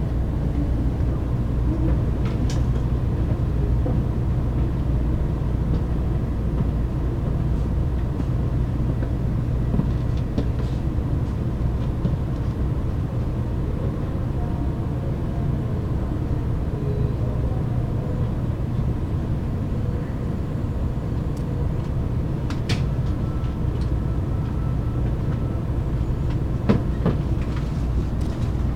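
Steady low rumble inside a JR Kyushu 800 series Shinkansen car as the train runs along the station platform on arrival, with a few light clicks and knocks scattered through it.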